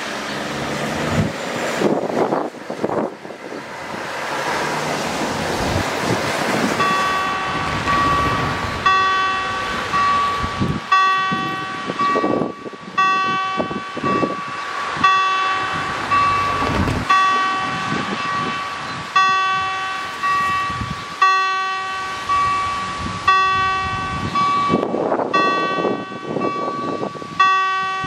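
Level-crossing warning bell starting to ring about seven seconds in, a metallic ding repeated about once a second: the crossing is activating for an approaching train. Before it, a steady rushing noise.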